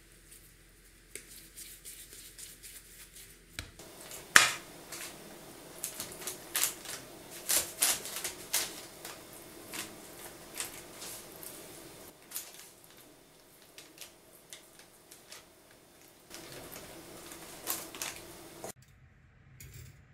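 A metal spoon clicking and scraping in irregular sharp taps as thick pepper paste is scooped from a bowl and spread onto rounds of dough on a baking tray. Before it, a few seconds of faint handling of soft dough; the clicking stops shortly before the end.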